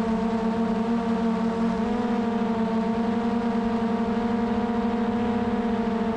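Quadcopter drone propellers whining steadily in a hum of several stacked tones that beat against each other. The pitch rises slightly about two seconds in as the motors speed up.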